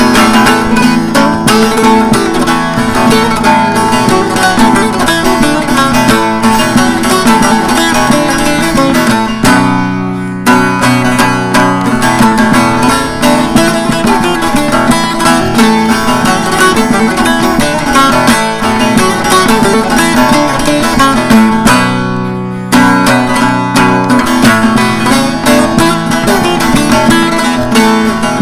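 Bağlama (long-necked Turkish saz) playing a lively instrumental zeybek melody in quick, continuous picked notes. Twice, about a third of the way in and again about three-quarters through, the picking stops for under a second and a low note rings on alone before the tune resumes.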